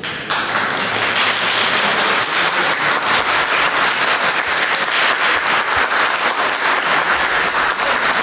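Audience applauding, starting abruptly just after the start and continuing steadily.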